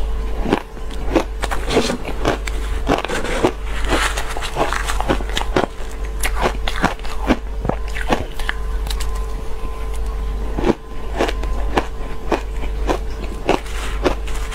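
Crushed, frosty ice being bitten and chewed close to the microphone: a dense run of crisp crunches and crackles, several a second.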